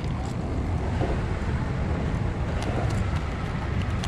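Wind buffeting the microphone as a steady low rumble, with a few faint ticks from handling.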